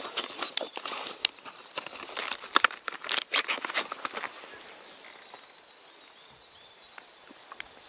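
Close, irregular rustling and crackling with sharp clicks near the microphone, dying away about four seconds in and leaving a quiet outdoor background.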